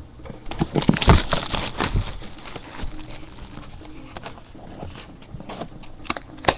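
Plastic shrink-wrap being torn off a trading card box and crinkled, a dense run of crackling in the first couple of seconds, then scattered rustles and clicks.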